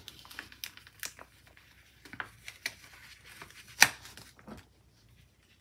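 Paper planner sticker being peeled up off a planner page by hand: faint papery crackles and rustles, with one sharper crackle about four seconds in.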